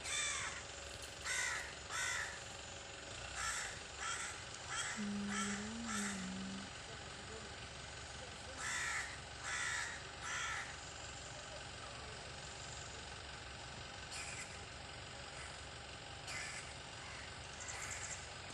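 A bird cawing over and over: short, harsh calls in quick runs, thick in the first ten seconds and thinning out after that.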